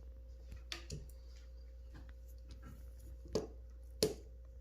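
A few light, sharp clicks and taps of small objects being handled, four in all, the last two louder, over a faint steady hum.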